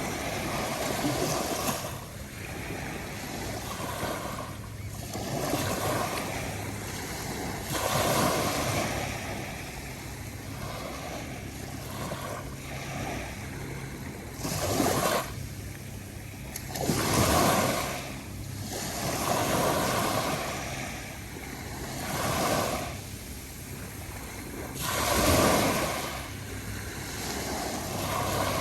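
Calm ocean waves breaking and washing up a sandy shore, one after another. Every few seconds a louder wave surges and then falls back.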